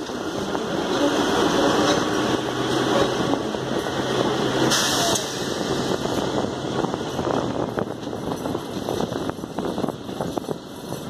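Narrow-gauge passenger train running on the Kalka–Shimla line, heard from an open carriage window: a steady rumble and rattle of the carriages, with a low hum in the first half and a busier clatter of wheel clicks over the track in the second half.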